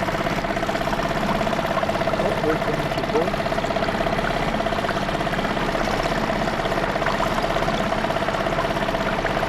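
A dinghy's outboard motor idling steadily, with an even hum and a fast, regular pulse.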